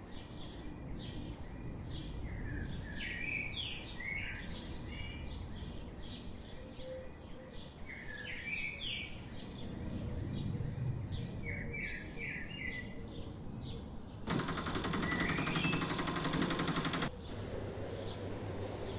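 Small birds chirping over and over in short rising chirps, against a steady background hiss. About fourteen seconds in, a harsh buzzing noise cuts in for about three seconds and stops suddenly.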